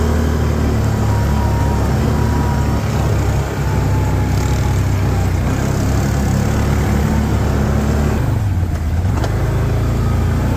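Can-Am four-wheeler engine running steadily under the rider on a muddy trail. It eases off about eight seconds in, then picks up again.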